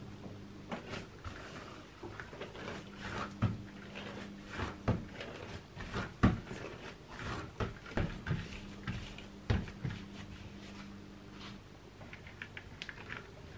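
Hands handling a ball of soft yeast bread dough on a silicone mat: irregular soft pats, slaps and thuds as it is lifted, turned and set down, the loudest about halfway through. Near the end a run of small light clicks as a plastic knife goes into the dough.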